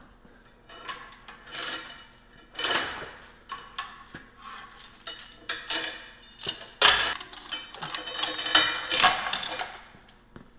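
Metal parts and tools clanking and clinking against each other as they are handled at a stripped tractor chassis. The knocks come irregularly, with ringing metallic tones, and are busiest and loudest about seven to nine seconds in.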